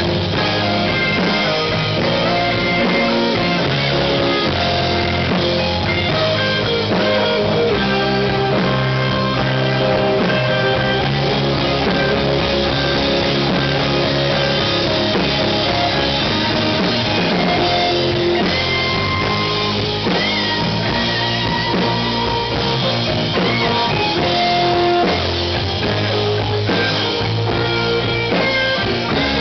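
Live rock band playing at a steady, loud level: electric guitars, electric bass and a drum kit, with a keyboard.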